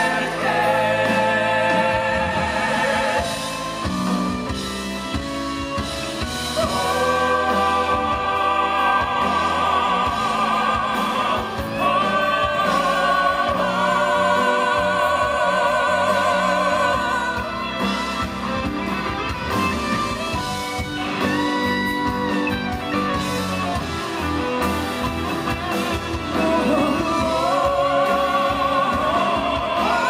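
Male vocal quartet singing a ballad live with strong vibrato over a band, their voices amplified through the hall's sound system.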